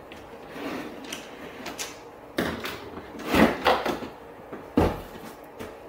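Old plastic third brake light housing being worked loose and popped out of a pickup's cab roof: a series of plastic clicks and clunks, loudest around the middle, with one sharp knock near the end.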